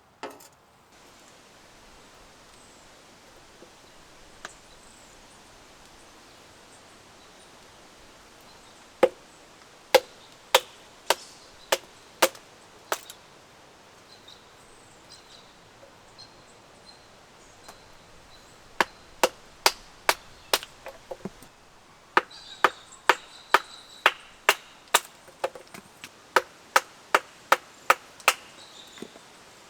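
Wood being chopped with a hatchet: three runs of sharp strikes, about two a second, the longest run near the end, over a faint steady hiss.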